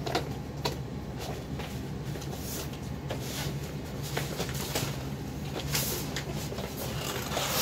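AstroGuard hurricane fabric shutter panel rustling and scraping in irregular bursts, with soft clacks, as it is pulled off its mounting studs and gathered up. A steady low hum runs underneath.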